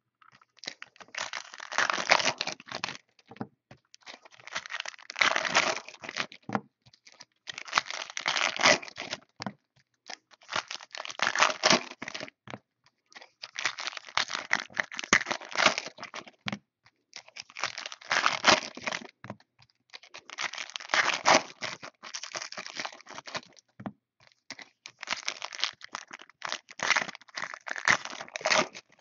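Trading card pack wrappers being torn open and crinkled by hand, in about eight bursts of a second or two each.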